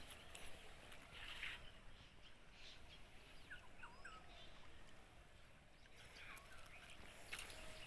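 Near silence: faint outdoor ambience with a few short, faint bird chirps about halfway through.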